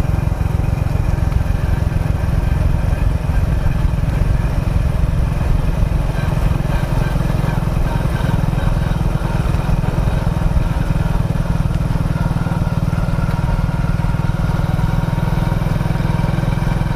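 Motorcycle engine running steadily while riding along a road, with a dense low rumble and no change in pace.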